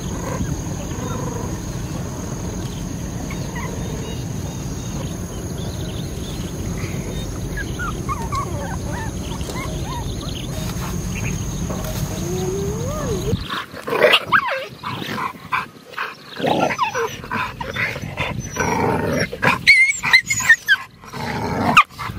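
Steady low wind rumble with a few faint whines, then from about 13 seconds in a puppy and a larger dog growling, barking and yelping at each other in loud, irregular bursts.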